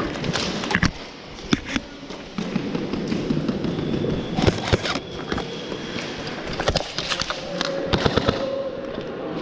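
Airsoft guns firing single shots: sharp pops and clacks at irregular intervals, a few of them in quick clusters.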